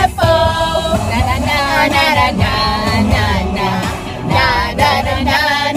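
Pop song playing, with women's voices singing along over it.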